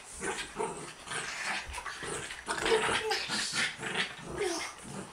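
Small chihuahua–French bulldog mix dog growling and yipping in short, irregular bursts while roughhousing in play.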